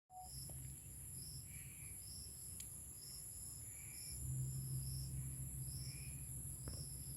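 Faint insect chorus, crickets trilling steadily at a high pitch, with a shorter chirp repeating a little more than once a second and a softer, lower call about every two seconds. A low rumble underneath grows louder about halfway through.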